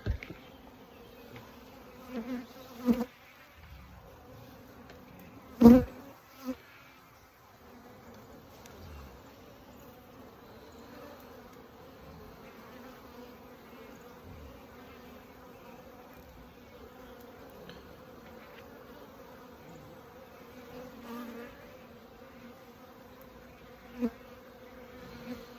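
Honeybees buzzing in a steady hum from an opened hive, with a few short knocks; the loudest knock comes about six seconds in.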